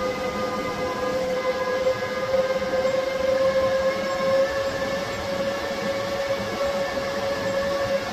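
EG4 solar inverters (a pair of 6000XPs and an 18kPV) running near full load: a steady, loud whining drone of cooling fans and electrical hum, its pitch creeping slightly higher.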